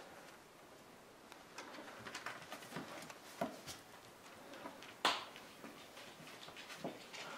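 Parson Russell terrier puppies scuffling and playing: a light patter of paws, claws and scratching on a rug and a cloth bag, with small clicks and one sharper click about five seconds in.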